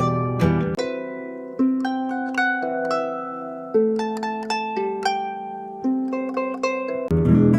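Fingerstyle acoustic guitar music: a sparse passage of single plucked, ringing notes with no bass, then fuller picking with low bass notes comes back near the end.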